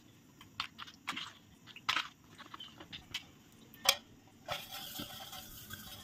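Steel spoon stirring a thick semolina, egg and milk batter in a plastic bowl, with scattered light clicks of the spoon against the bowl and a soft, steady scraping from about two thirds of the way through.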